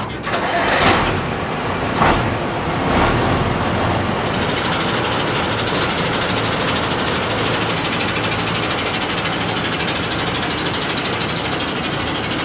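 Diesel engine of a classic Mercedes-Benz LK 2624 short-bonnet truck, surging a few times in the first three seconds, then idling steadily.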